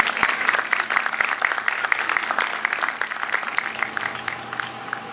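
A small audience clapping, a round of applause that thins out and stops about four and a half seconds in, with a steady hum underneath.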